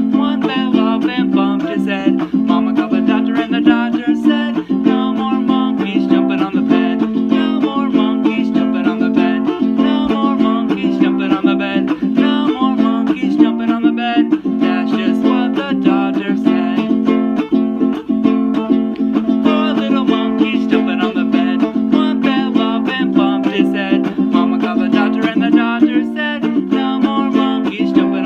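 Instrumental music on a plucked string instrument, a quick, even run of picked notes without a break.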